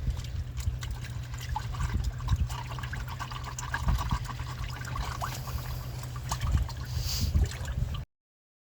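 Water trickling and splashing, with many small clicks over a steady low rumble. It all cuts off suddenly near the end.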